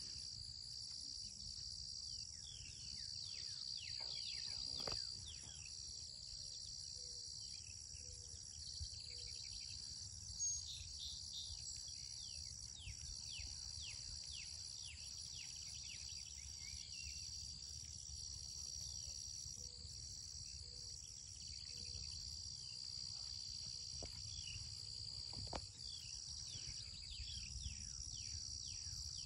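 Steady outdoor chorus of insects trilling in several high-pitched bands, with many short falling chirps over it and a low rumble underneath.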